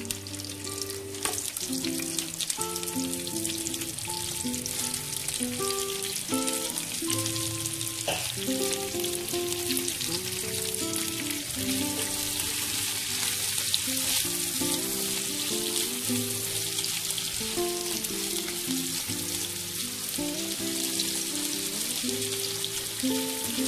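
Shredded cabbage sizzling steadily in hot oil in a pan, stirred with a spatula, under background music with slow held notes.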